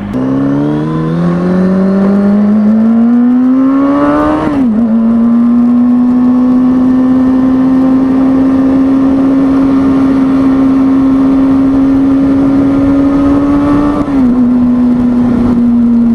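Kawasaki ZX-6R 636 inline-four engine accelerating through the gears: its pitch climbs for about four seconds, drops at an upshift, then holds steady with a slow rise until another upshift near the end.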